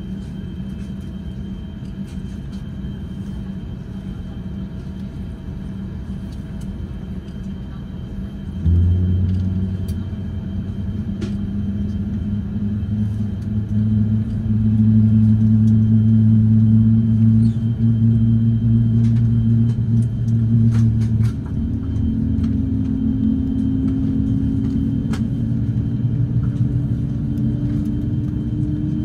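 Airbus A350-900 airliner cabin drone while on the ground before takeoff: a steady low rumble, then about nine seconds in a louder low hum starts abruptly and slowly rises in pitch, shifting to a single higher hum about two-thirds of the way through. Faint clicks here and there.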